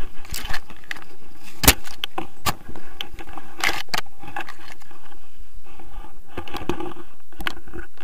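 Irregular metallic clicks, knocks and rattles from a handheld camera pole and paragliding harness hardware, with carabiners and buckles clinking, as a tandem paraglider lands. There is a low steady noise underneath.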